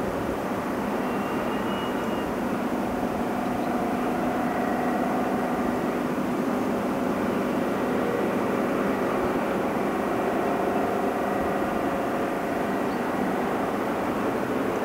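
Heavy diesel earthmoving machinery running steadily, a continuous rush of engine noise with faint whining tones.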